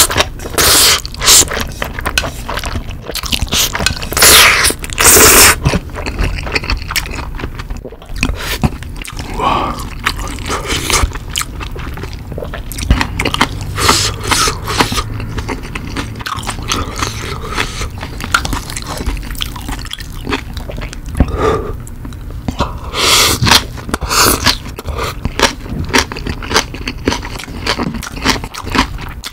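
Close-miked eating sounds: black bean instant noodles slurped in loud bursts near the start, a few seconds in and again about 23 seconds in, with chewing of noodles and green onion kimchi in between.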